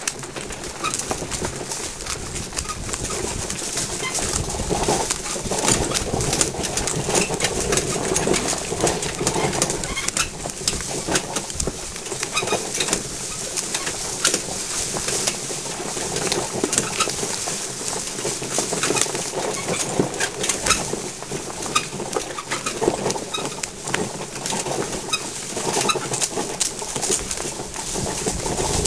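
Pony-drawn iBex carriage moving over a rough, rutted track: a continuous rattling and clattering, dense with sharp knocks from the wheels and frame.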